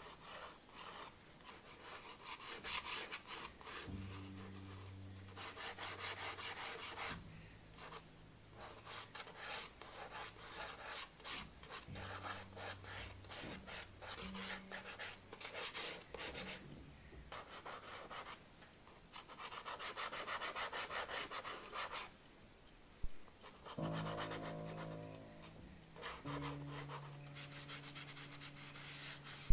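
Red pastel stick scratching and rubbing across textured drawing paper in rapid back-and-forth strokes, coming in spells of a second or a few seconds with short pauses between.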